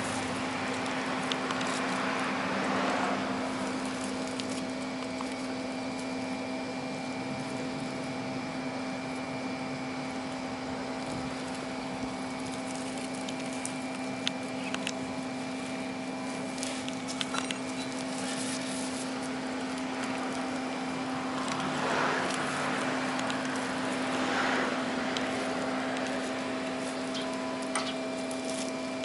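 A steady mechanical hum with a fixed low tone, over which thin wire clicks and rustles as it is wrapped and twisted by hand around a stainless steel pipe flange. Two brief swells of hiss come a little after twenty seconds in.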